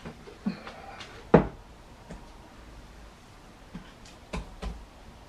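A few scattered knocks and clicks of household objects being handled, the loudest about a second and a half in.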